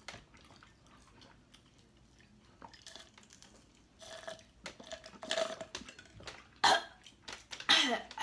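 Close-up eating: Hot Cheetos-coated fried chicken being bitten and chewed with crunching, faint at first and busier from about halfway. Two loud sudden sounds come near the end.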